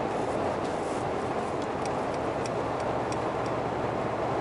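Cabin noise of a Mercedes-AMG G63 with its V8 bi-turbo cruising steadily at motorway speed, a constant tyre and wind roar. About half-way through comes a short run of light ticks, roughly three a second.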